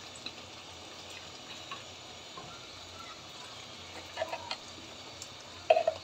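Chicken rezala gravy simmering in a pot on a gas burner: a low steady bubbling hiss with small scattered pops. A few louder short clinks come about four seconds in and again just before the end.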